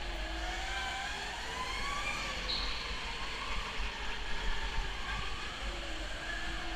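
Go-kart motor heard from on board, its whine gliding up and down in pitch as the kart speeds up and lifts through the bends, over a steady low rumble.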